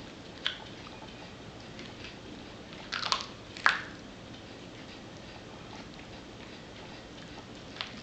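A Yorkshire terrier crunching the bone of a raw chicken leg: a few sharp cracks with quieter chewing between them, the loudest pair about three to four seconds in.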